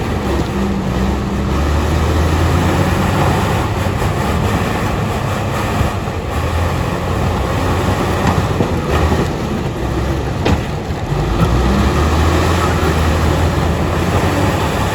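Bulldozer's diesel engine running steadily with a deep low rumble as the machine works stone.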